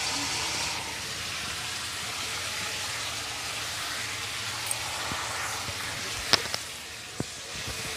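Food sizzling as it fries in hot oil in a pan, a steady hiss, with a few sharp clicks near the end.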